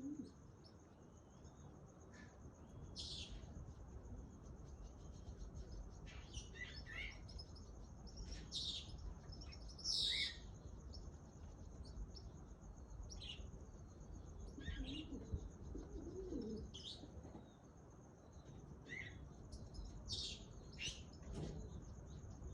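Short, scattered high chirps and squawks from a pet parrot, with one louder call about ten seconds in. A faint steady high-pitched whine runs underneath.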